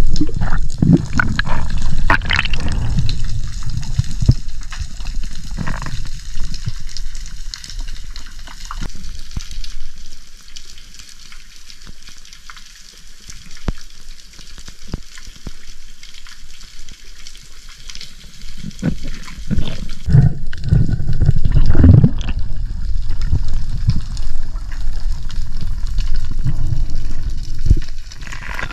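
Water sloshing and bubbling against the camera, with many sharp crackling clicks throughout. It is louder at the start and again about twenty seconds in.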